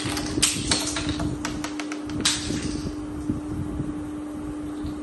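Hard plastic toy building blocks clicking and clattering on a hard tabletop as they are picked up and set down: a quick run of clicks in the first two seconds, then fewer and fainter ones. A steady low hum runs underneath.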